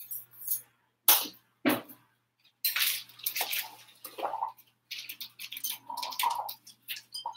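A plastic zip-top bag rustling and crinkling as it is handled, in irregular bursts.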